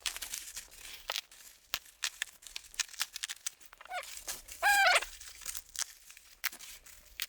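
Bubble wrap and packing tape being pulled and torn off a package: irregular plastic crackling and tearing, with two short squeaky screeches about four and five seconds in.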